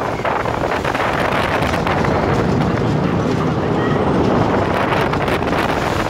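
TOGO stand-up steel roller coaster train running fast along its track: wind rushing over the microphone, with the rumble and clatter of the wheels on the steel rails.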